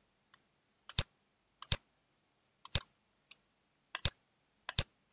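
Computer mouse clicking: five sharp clicks, each a quick double tick, spread a second or so apart.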